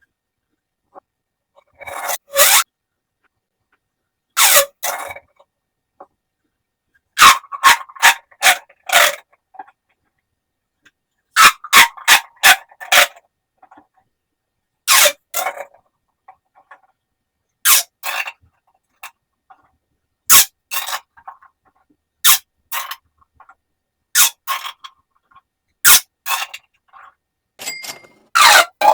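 Plastic pop tubes being stretched and squeezed, giving short bursts of crackly popping and scraping in clusters every second or two, with silent gaps between.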